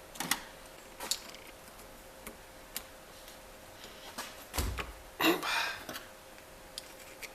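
Scattered metallic clicks and knocks as a manual gearbox shaft is handled at a bench vise with hand tools. A dull thump comes about four and a half seconds in, followed at once by a short scraping rattle.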